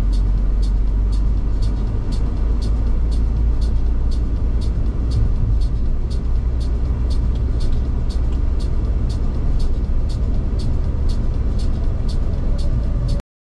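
Car on the road: a steady low engine and road rumble with a regular high tick about twice a second, cutting off abruptly near the end.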